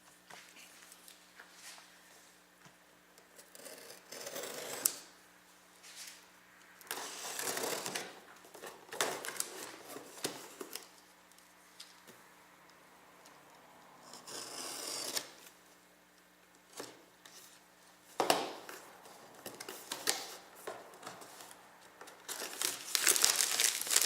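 Cardboard box and plastic packaging of an AIO liquid cooler being opened by hand: scattered tearing, rubbing and rustling, busiest and loudest near the end.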